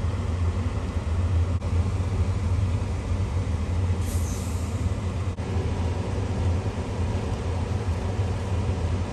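A steady low hum with a rushing noise over it, and a brief high hiss about four seconds in.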